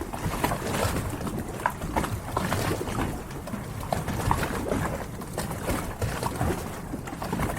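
Harbor ambience: a steady low rumble of water and wind, dotted with many brief, scattered short high sounds.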